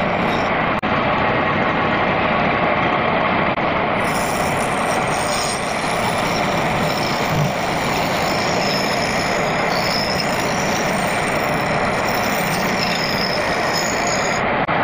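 Homemade wood lathe running steadily while a hand-held turning chisel cuts into a spinning wooden bowl blank: a continuous rasping cut over the motor and spindle noise, with a steady high whine.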